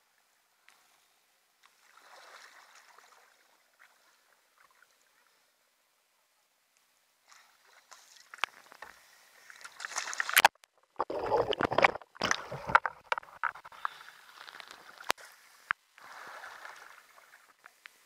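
Sea kayak capsizing and rolling back upright: water sloshing and splashing over the deck, loudest about two-thirds of the way through, then water splashing and dripping off as the boat settles.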